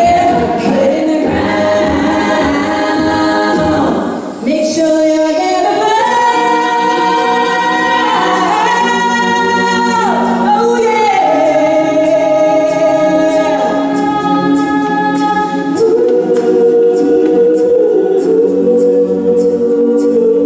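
All-female a cappella group singing in close harmony, holding long sustained chords, over a steady beatboxed vocal-percussion beat. The sound dips briefly about four seconds in.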